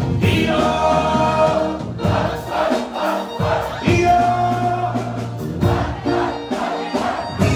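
Live band music with singing: long held sung notes over a steady drum beat.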